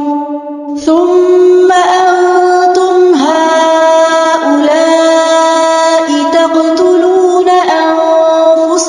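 Melodic Quran recitation: a single voice chanting Arabic verses, drawing out long held notes that step up and down between pitches. It begins after a short breath pause.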